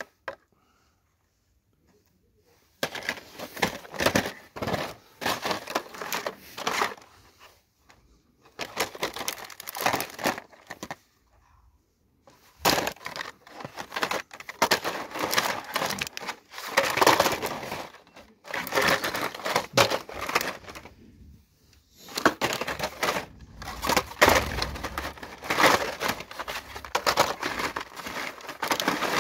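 Hot Wheels blister-pack cards being rifled through by hand in a wire bin: plastic blisters and cardboard backings rustling, crinkling and clicking against each other in irregular spells, with short pauses between.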